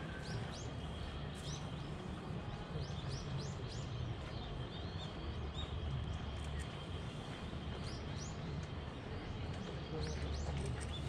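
Small birds calling in short, quickly rising high chirps that come in clusters of several notes, over a steady low rumble.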